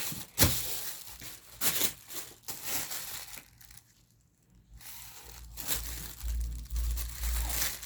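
Thin plastic bag crinkling in irregular bursts as it is handled, with a sharp click about half a second in and a pause of about a second midway.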